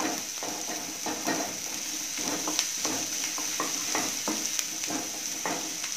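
Chopped onions, green chillies and green garlic sizzling in oil in a nonstick kadhai, with a steady hiss, while a spatula stirs and scrapes the pan in short, irregular strokes.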